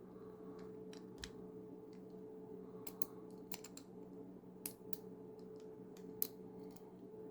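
Faint, irregular metallic clicks and small scrapes of a turning tool being worked in the back hole of a stainless steel disc lock, with a couple of sharper clicks near the end. A steady low hum runs underneath.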